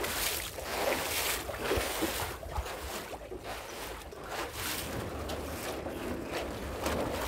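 Paddle strokes in sea water from a small paddled boat: repeated swishes and splashes, roughly once a second, over wind rumbling on the microphone.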